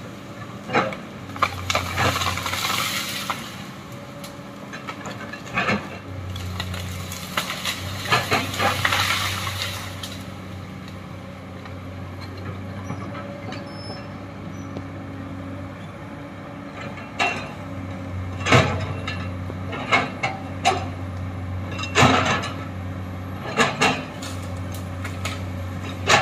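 Komatsu hydraulic excavator digging into a hillside bank: the diesel engine runs steadily and swells under load several times, with many sharp knocks and clanks from the bucket working the earth and two spells of hiss.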